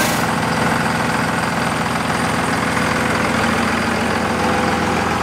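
Second-generation Dodge Ram's Cummins turbo-diesel idling steadily, with an even diesel clatter and no revving.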